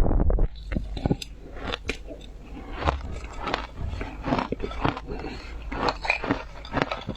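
Frozen ice being bitten and chewed close to the microphone: a run of irregular sharp crunches and cracks, thickest right at the start.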